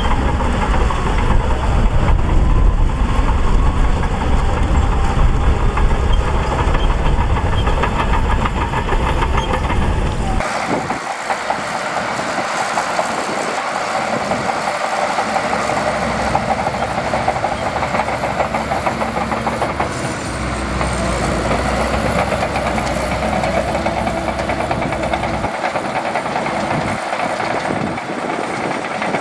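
Shantui DH17C2 crawler bulldozer working: diesel engine running under load with its steel tracks clattering. About ten seconds in the sound changes abruptly, the deep rumble dropping away and a rapid, denser clatter taking over.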